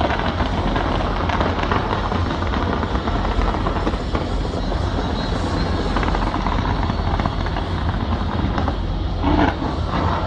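Fireworks going off in a dense, unbroken barrage: overlapping booms and crackle that merge into a continuous heavy rumble.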